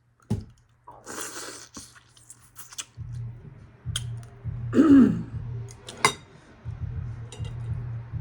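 A person eating, with sharp mouth clicks and smacking while chewing. There is a breathy rasp about a second in, and a short harsh throat sound falling in pitch about five seconds in, the loudest moment.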